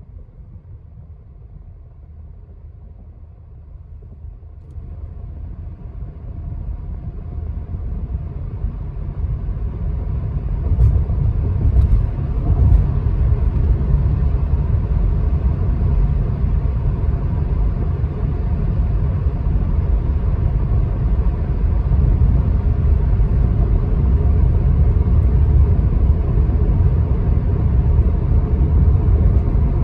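Car driving on a highway, heard from inside the cabin: a steady low road-and-engine rumble that grows louder over the first dozen seconds, then holds level.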